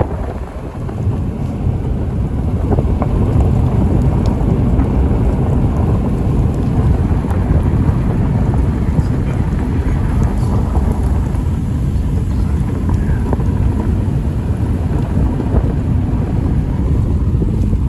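Strong storm wind buffeting the microphone as a steady low rumble, with a few faint ticks.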